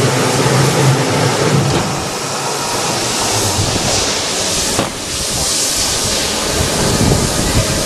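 Log debarking machine running with a log turning between its rollers, making a loud, steady machine noise. A low hum is heard at first, and irregular cracking comes in during the second half as bark is stripped from the log.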